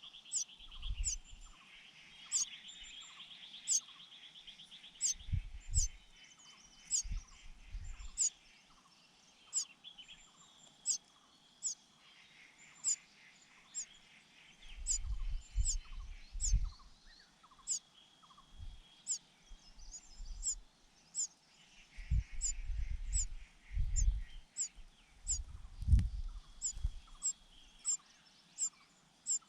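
Nestlings' begging calls: sharp high cheeps repeated about twice a second, with stretches of raspy, buzzing begging over them. Irregular low thumps come and go, clustered near the middle and towards the end.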